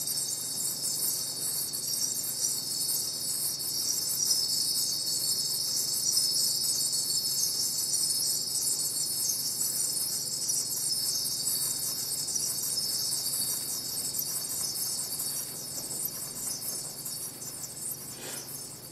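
Live electronic music from a laptop running AudioMulch: a dense, high-pitched shimmering texture that fades toward the end.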